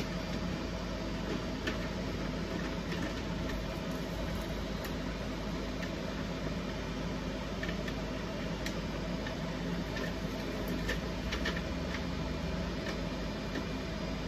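Steady whirring hum of 3D printers and fans running, with scattered light clicks and taps at irregular moments from hands working the plastic bars and LED strip.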